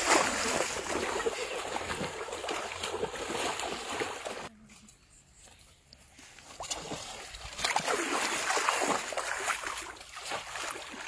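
Shallow water splashing and sloshing as people wade through it, a metal pot being pushed along the surface. The splashing drops away for a second or two around the middle, then picks up again.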